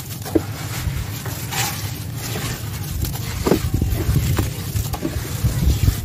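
Hands squeezing and crumbling wet sand-and-cement mush in a bowl of watery paste: wet squelches, gritty crumbling and short pops, then smearing and scraping it around the bowl near the end, over a steady low rumble.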